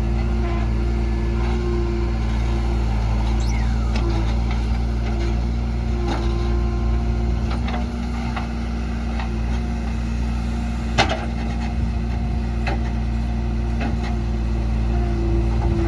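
Diesel engine of a JCB 3DX backhoe loader running steadily under work, with scattered knocks over it and one loud knock about eleven seconds in.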